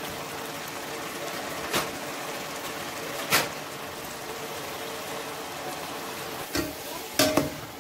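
Chicken pieces frying in oil in a stainless steel pan, a steady sizzling hiss. Single sharp taps come twice, and a few more near the end.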